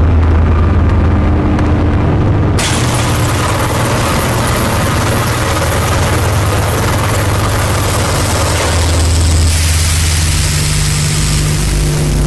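Noise-music recording: a loud, dense wall of distorted noise over a steady low drone. A layer of high hiss cuts in suddenly about two and a half seconds in, and the texture shifts again a few seconds before the end, the highs brighter and the middle thinner.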